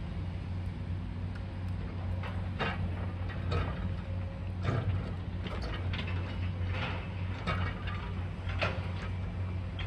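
High-reach demolition excavator working a building: its diesel engine runs with a steady low drone while the jaw attachment breaks concrete, giving irregular cracks, knocks and clatters of falling debris.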